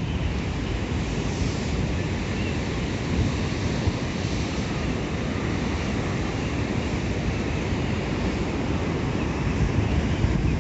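Strong wind buffeting the microphone over the steady wash of rough sea surf.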